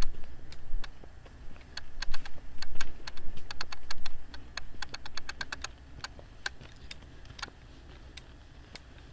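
Footsteps on a hiking trail: a quick, irregular run of sharp clicks and crunches underfoot, densest in the middle and thinning out near the end.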